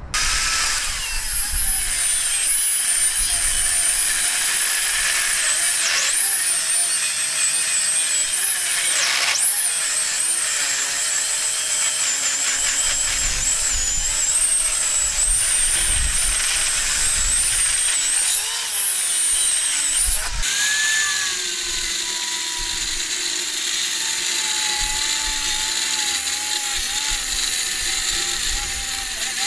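Bosch GWS 20-230 9-inch angle grinder with an abrasive cut-off disc cutting through a steel railway rail: a loud, steady high whine and grinding. The pitch wavers and dips sharply now and then as the disc bites into the steel.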